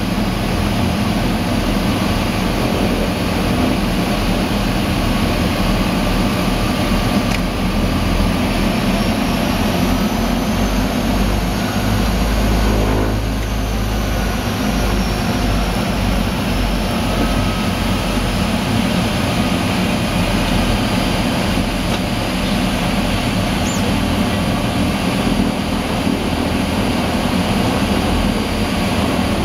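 de Havilland Canada DHC-6 Twin Otter's twin PT6A turboprop engines and propellers running loud and steady, heard from inside the cabin, with a swell in the low drone about halfway through.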